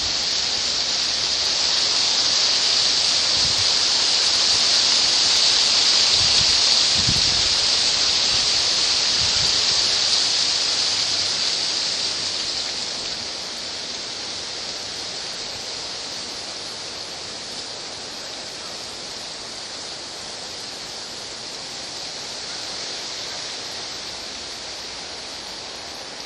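Tree leaves rustling in the wind: a steady, hissing rush that swells over the first several seconds and eases off to a lower level after about twelve seconds, with a few soft low thumps early on.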